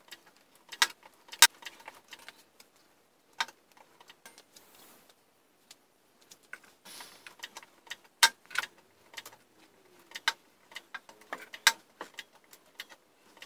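Irregular sharp metallic clicks and clinks from a hydraulic scissor lift being pumped up and the engine and gearbox being raised into the car's body, with quiet gaps between them.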